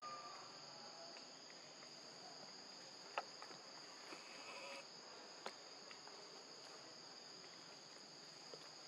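Steady high-pitched drone of insects, two held tones, with a few faint ticks.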